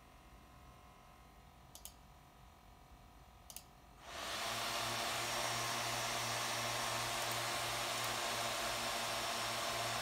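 MSI GS65 gaming laptop's cooling fans, quiet at first with two faint clicks, then about four seconds in spinning up within half a second to a loud, steady rushing whoosh with a low hum under it.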